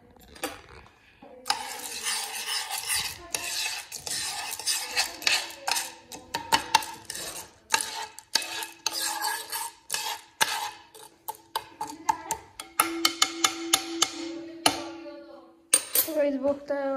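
Metal spoon stirring dry popcorn kernels in melted ghee in a metal pan: a dense run of scraping and rattling clicks against the pan. It starts about a second and a half in and stops shortly before the end.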